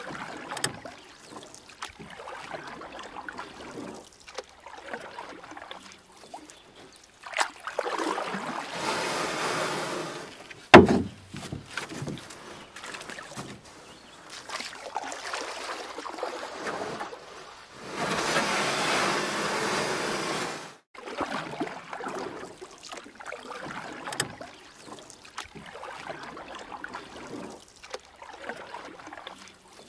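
Kayak paddle strokes splashing and dripping water every second or two, with two longer stretches of rushing water noise. A single sharp knock about a third of the way in is the loudest sound.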